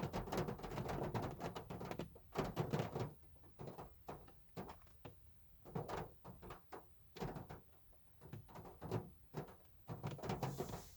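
Rain falling on a car, heard as irregular taps and drips of drops striking the body, dense for the first few seconds and then thinning out.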